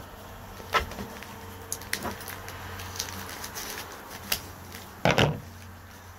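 Paper packing slips being handled and set down on a table: a few light taps, and a short, louder rustle about five seconds in, over a low steady hum.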